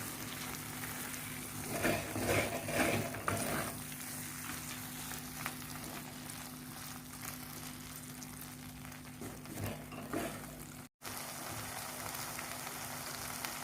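Okra masala sizzling and crackling in oil in a kadhai, the oil having separated from the masala as the dish finishes cooking. Louder stirring scrapes come about two seconds in and again near ten seconds, over a steady low hum.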